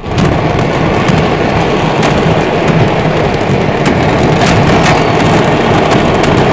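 A stock of fireworks exploding all at once: a dense, continuous crackling and popping from hundreds of fireworks going off together, with sharp cracks scattered through it. The loudest crack comes about four and a half seconds in.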